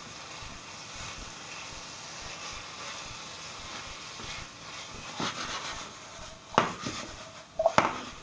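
Courgettes and peas frying in a pan with a steady low sizzle while a silicone spatula stirs them. A few sharp knocks and clatters of pan and spatula come in the second half, the loudest near the end.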